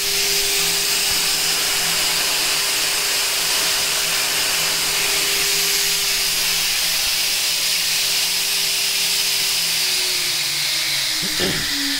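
CNC router spindle spinning a 3D-printed impeller fan at 24,000 rpm: a steady whine over a strong airy hiss from the fan, quite a lot louder than the previous fan design. Near the end the pitch begins to fall as the spindle slows.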